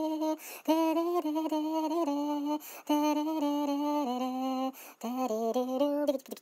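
A single unaccompanied voice humming a slow melody in long held notes that step up and down, with short breaks between phrases.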